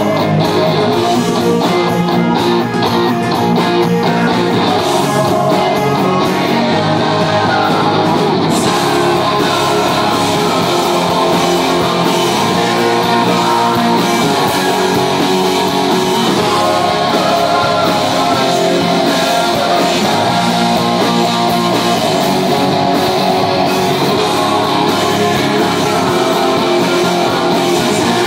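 Live rock band playing loud: electric guitar, bass guitar and drums in a rock song. The sound grows brighter about eight seconds in.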